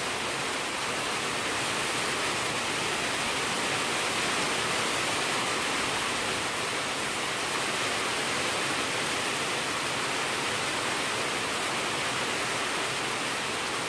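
Heavy rain falling steadily, a dense, even hiss with no letup.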